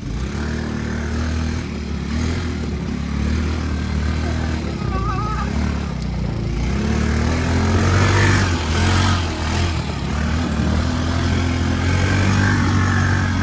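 ATV engine running while riding, its pitch rising and falling with the throttle, loudest about eight seconds in.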